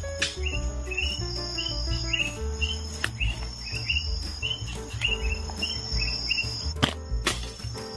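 Insects shrilling steadily, with short rising chirps repeated about twice a second and a few sharp clicks, one about three seconds in and two near the end.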